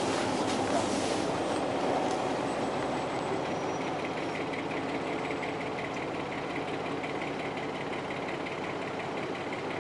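Steady rumble of a fishing boat with its engine running and water washing along the hull.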